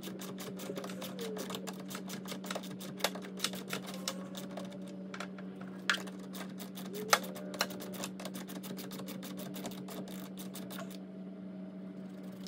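Socket ratchet clicking in quick strokes as the nut on a car battery's negative terminal clamp is loosened, with a few louder metal clinks among the clicks. The clicking stops about a second before the end.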